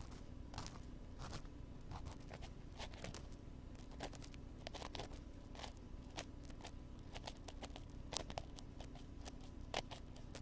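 Wooden ear pick scratching and scraping against an ear microphone in irregular short crackling strokes, with a couple of sharper clicks about eight and ten seconds in, over a steady low background hum.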